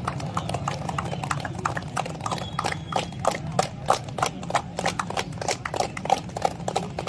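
A group of people clapping their hands, sharp claps at about four a second, over a steady low hum.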